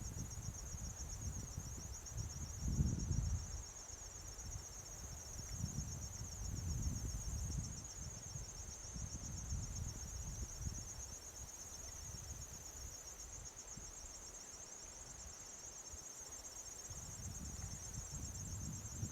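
Insects trilling in a steady, high, finely pulsing chorus. Under it a low rumble swells and fades several times, strongest about three seconds in.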